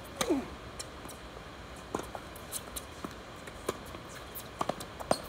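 Tennis rally on a hard court: the serve is struck with a short falling grunt, then a series of sharp pops from racket strings hitting the ball and the ball bouncing, spaced about half a second to a second apart.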